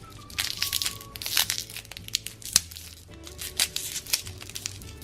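Plastic crinkling and rustling in quick irregular crackles, from the candy's packaging being handled, over faint background music.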